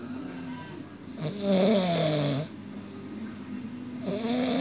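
A person snoring in their sleep: a loud snore with a wavering pitch about a second in, lasting over a second, quieter breathing after it, and the next snore starting near the end.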